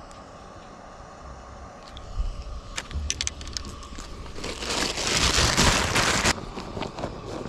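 A thin plastic shopping bag crinkling as it is grabbed and handled, loudest for about two seconds past the middle, after a few sharp clicks of gear being handled.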